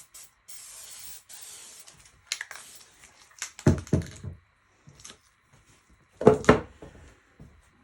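Aerosol spray-paint can hissing in two short bursts, followed by scattered clicks and two loud, short knocks.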